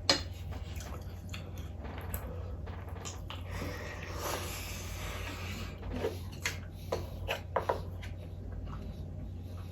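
Eating at the table: a spoon clicks sharply against a dish, then comes a stretch of chewing. A few more quick utensil clicks follow about six to eight seconds in.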